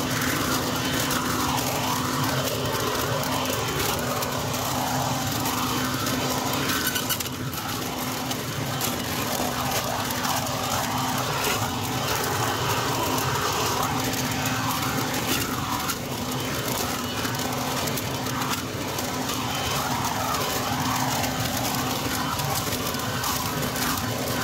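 Harbor Freight Portland 12-amp electric blower vacuum mulcher running steadily in vacuum mode, its motor humming as dry oak leaves are drawn into the nozzle to be mulched.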